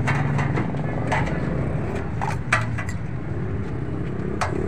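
Steel plates clinking a few times as they are set on a metal serving tray, over a steady low rumble of street traffic.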